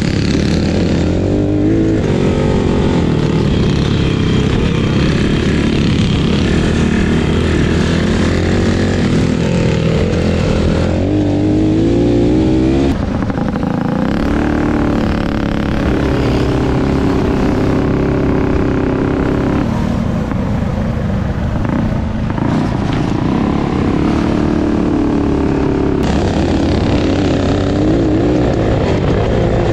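Small single-cylinder mini bike engines running hard on a trail lap, their pitch rising and falling as the throttle is opened and closed, with wind and rumble on an onboard camera microphone.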